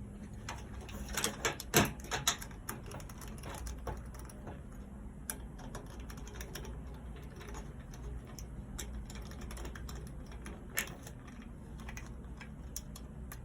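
Scattered small clicks and taps of seatbelt retractor parts and hand tools being handled during reassembly, with a cluster of louder clicks about two seconds in and a few single clicks later.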